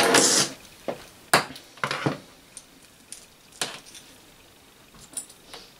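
A brief rustle of handling close to the microphone, then a string of separate light clicks and knocks as small hard tools and plug parts are moved about on a tabletop, the sharpest about a second and a half in.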